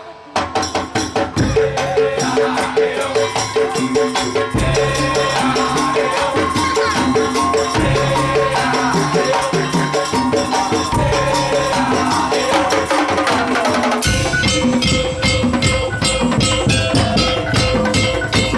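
Madurese daul (tong-tong) ensemble playing a fast, percussion-led piece, with dense rhythmic strikes over sustained pitched tones. After a short break at the start the deep bass comes in about a second and a half in, and about 14 seconds in the texture changes to sharper, brighter strikes.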